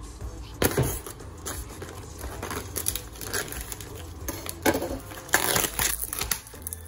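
Plastic film on a supermarket tray of raw chicken being pierced with a knife and peeled back, crinkling and tearing in several short bursts, the longest a little over five seconds in.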